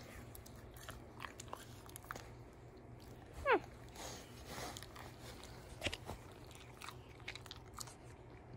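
German shepherd making soft licking and mouth clicks while being petted, with one short falling whine about three and a half seconds in.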